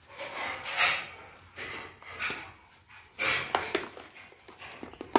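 A string-tied cardboard sweet box being handled and opened: short bursts of papery rustling and scraping, with a few light clicks and taps around three and a half seconds in.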